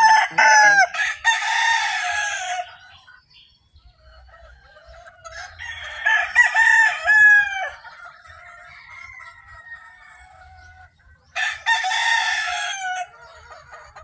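Rooster crowing three times, several seconds apart, with quieter chicken calls between the crows.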